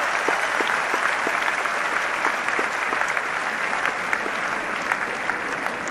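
A large crowd applauding: many hands clapping together in a dense patter, slowly easing off.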